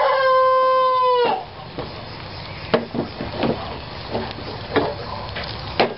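A rooster crows, its long held note dropping slightly and ending just over a second in. Then a spatula taps and scrapes a few times in a frying pan of scrambled eggs, with faint sizzling underneath.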